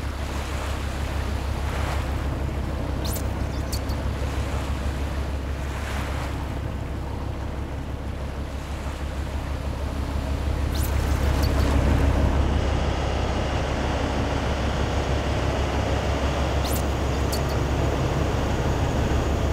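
Ocean waves washing over a steady low rumble like a ship's engine, with a few brief high swishes.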